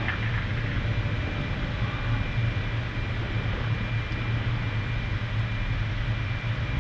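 Steady low hum with an even hiss, the running machinery of a deep-sea submersible heard from inside its cabin.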